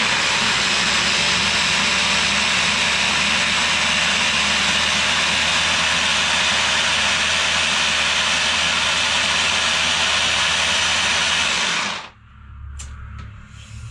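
Electric hand mixer with its chopper bowl attachment running steadily, blending frozen fruit for about twelve seconds, then switched off suddenly.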